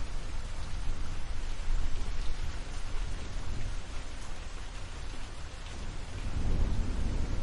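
Thunderstorm: steady rain with a continuous deep rumble of thunder that eases in the middle and swells again near the end.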